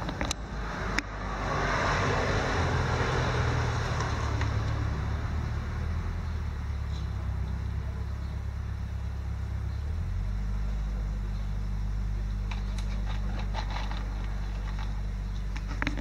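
A motor vehicle's engine running steadily with a low hum, and a rushing noise that swells over the first few seconds and then fades. The hum shifts in pitch about ten seconds in.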